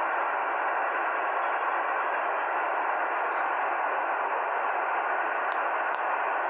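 Shortwave receiver tuned to a 40-metre single-sideband voice net, putting out steady static hiss confined to its narrow voice passband, with no readable signal in it.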